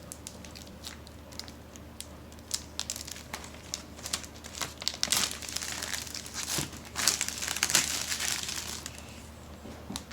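Plastic packaging crinkling and rustling as a new desktop PC is handled and unwrapped, with scattered small clicks and knocks; it grows busier about halfway through.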